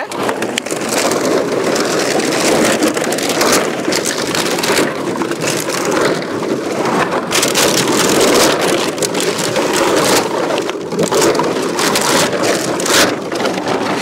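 Empty plastic bottles crackling and clattering as they are scooped up by hand from a heap and stuffed into a sack: a dense, continuous rattle full of sharp clicks.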